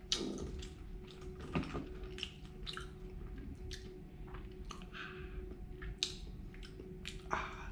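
Crunching and chewing of crisp fried mealworms: a run of short, irregular crunches.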